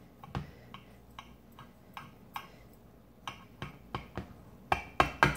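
A metal table knife clicking against a ceramic baking dish as it cuts through baked oat bars, with light, scattered ticks. Near the end the clicks come faster and louder, several a second.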